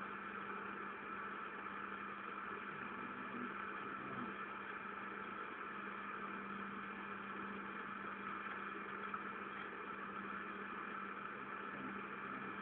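Milling machine running with a steady, even hum and whir, holding a few constant tones.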